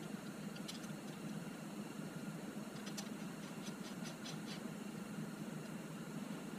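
Hex key turning a screw in the aluminium bracket of a digital quill scale: light metal-on-metal clicks, one early and a quick run of several in the middle, over a steady low hum.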